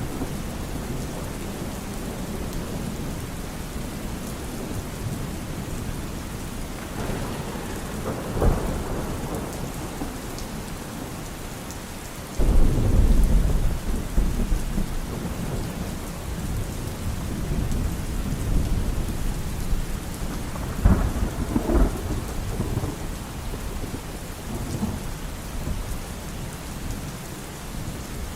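Steady rain with thunder. The loudest thunder comes suddenly about twelve seconds in and rumbles on for a couple of seconds, with shorter cracks of thunder near eight and twenty-one seconds.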